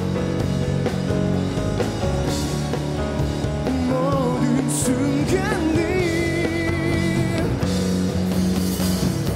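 Live rock band playing an instrumental passage: electric guitars, bass and drums, with a lead line of bent, wavering notes a few seconds in.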